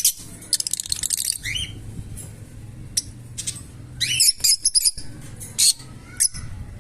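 Lovebirds chirping and squawking in short, high-pitched calls, with a quick rattling chatter about a second in and a cluster of loud, sharp calls past the middle.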